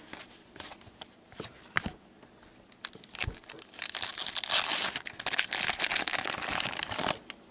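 A few light clicks of cards handled in gloved hands, then an O-Pee-Chee hockey card pack's plastic wrapper crinkling and tearing as it is ripped open, for about three and a half seconds, stopping just before the end.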